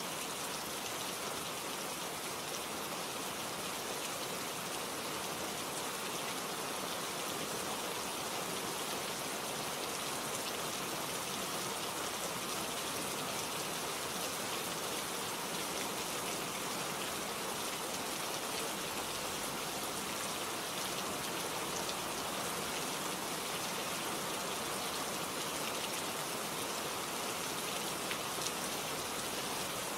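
Steady rain falling, a constant even hiss of many drops.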